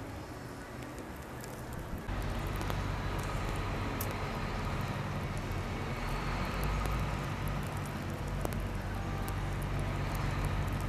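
Street traffic: steady noise of vehicles, stepping up abruptly about two seconds in to a louder, steady low engine rumble.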